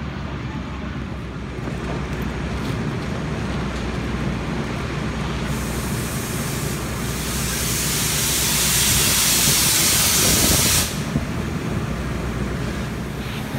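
Steady low hum of a running fire engine at the fireground. About five seconds in, a loud hiss starts, holds for about five seconds, then cuts off suddenly.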